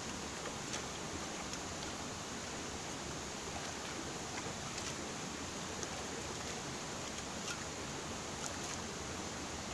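River water flowing steadily, an even rushing sound, with a few faint clicks.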